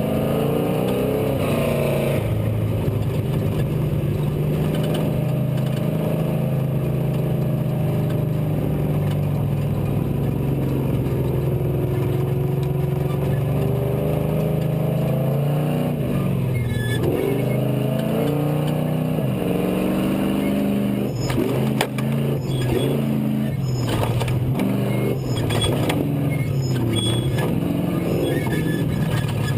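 Off-road race truck's V8 engine heard on board, revving up and falling back again and again as it is driven hard. Sharp knocks and rattles come through over the last third.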